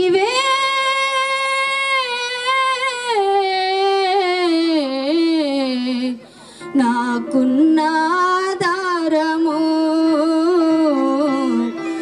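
A woman singing a slow Telugu Christian devotional song into a microphone over a PA, with long held notes that slide and waver in pitch. She breaks off briefly a little after six seconds in, then sings on.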